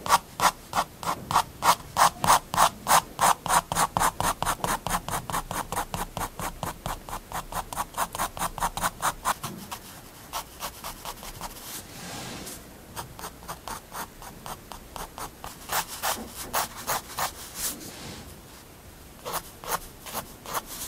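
Staedtler triplus 0.3 mm fineliner scratching across paper in quick, even short strokes, about four a second, then from about halfway in slower, scattered strokes with short pauses between them.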